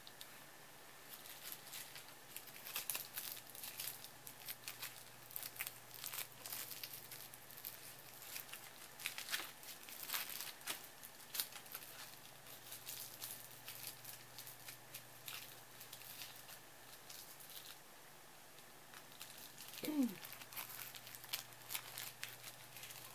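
Cellophane crinkling in short, scattered crackles. About twenty seconds in, a cat gives one short falling meow.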